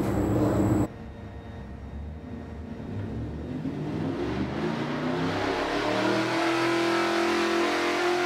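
Ford Coyote 5.0 L DOHC V8 with Borla individual-throttle stack injection in a full-throttle pull on an engine dyno, its pitch and loudness rising steadily as it revs up through the range. It is preceded by a short steady shop noise that cuts off abruptly about a second in.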